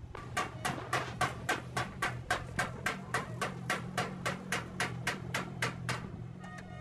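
A rapid run of evenly spaced knocks, about three or four a second and some two dozen in all, that stops shortly before the end.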